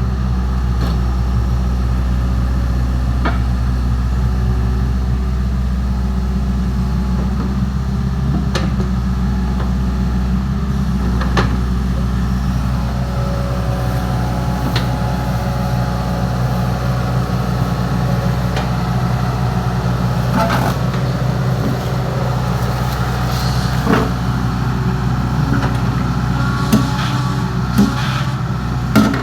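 Excavator's diesel engine running steadily, with occasional sharp knocks, several of them close together near the end.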